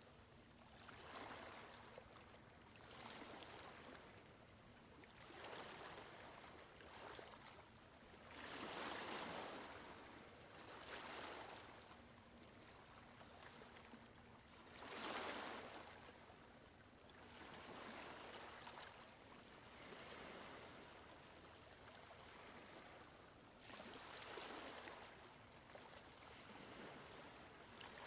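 Faint, gentle ocean waves washing in and out, in soft swells that rise and fall every few seconds.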